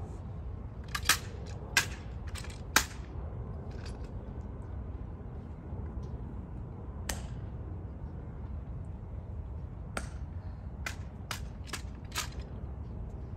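Sharp slaps and clicks of a ceremonial rifle with fixed bayonet being handled in a guard's rifle inspection, white-gloved hands striking the rifle. There are about a dozen separate snaps, the three loudest in the first three seconds and a quick run of them near the end.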